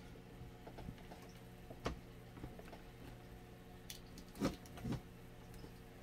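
Small plastic knocks and clicks as wires are pressed into the holders on a box fan's plastic housing, two of them louder about four and a half and five seconds in, over a steady low electrical hum.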